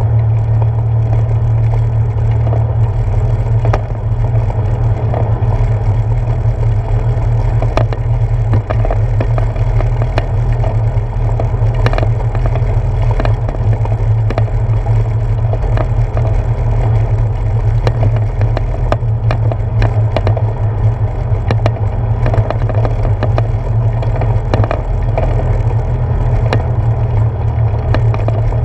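Bicycle tyres rolling over a wooden plank boardwalk, picked up through a handlebar-mounted camera: a loud, steady low rumble with quick, irregular clacks as the wheels cross the board joints.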